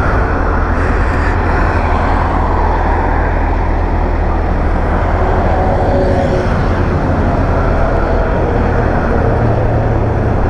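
Portable battery-powered air compressor running steadily with a low hum, pumping air into a punctured tubeless motorcycle tyre.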